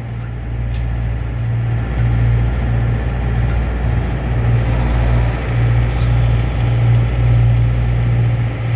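A small locomotive's engine running steadily with a low, even hum, heard from the cab as the train rolls along the track.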